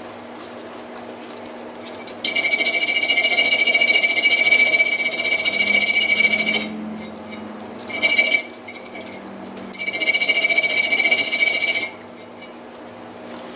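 Purple sanding stick scrubbed over the rusted cast-iron can opener, taking the rust off: a loud hissing scrape with a steady high squeal. It comes in three spells, the middle one short.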